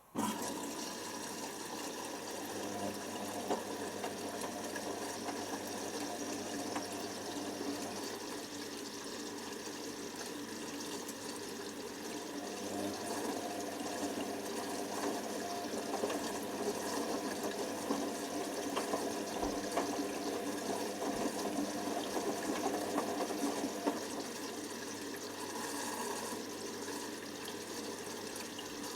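Hoover Nextra HNWL7146 washer dryer running mid-cycle: a steady mechanical hum with water sounds, cutting in suddenly.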